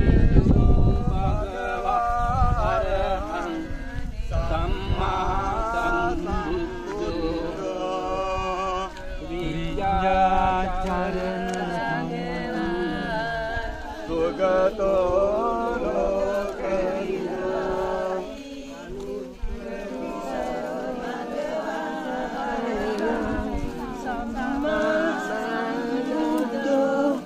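A group of voices chanting a devotional melody. Wind rumbles on the microphone for about the first second.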